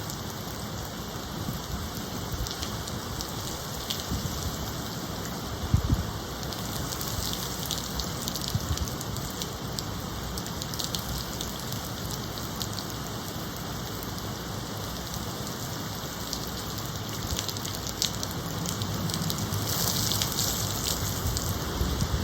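Steady rain with wind, rain hitting surfaces with scattered drip ticks, from hurricane weather ahead of a storm. There is a single sharp thump about six seconds in, and the rain swells a little louder near the end.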